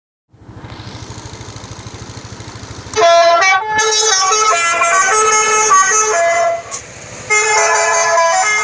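Electronic telolet horn sounding through a horn loudspeaker, playing a quick melody of stepped notes that starts about three seconds in, drops out briefly near the end and then starts again. Before the melody, a low, fast-pulsing hum.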